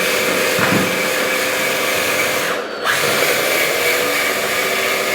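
Electric drive motors and metal gearboxes of a 1/14-scale RC hydraulic bulldozer running with a steady whine while it drives and pushes a heavy metal plate. The whine drops off briefly about halfway through, then comes back.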